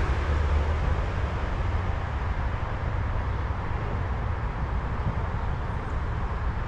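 Steady outdoor background rumble and hiss, strongest low down, with no distinct events.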